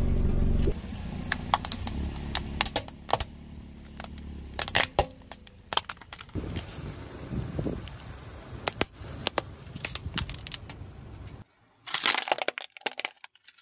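Car tyre rolling over and crushing plastic toys: a string of sharp cracks and snaps as the plastic breaks, broken by a short silent gap near the end before more cracking. A low steady sound stops under a second in.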